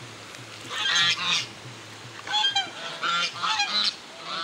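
A group of ducks calling in the water: several short, nasal, honking calls in two bursts, the first about a second in and the second from just past two seconds to near the end.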